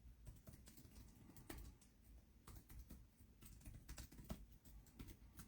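Faint, irregular clicks and taps, close to near silence.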